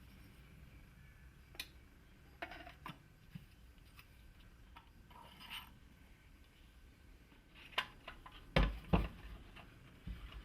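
Scattered clicks and knocks of metal parts of a pneumatic framing nailer being handled as its hammer piston is pushed through the barrel, with two or three heavier knocks about eight to nine seconds in.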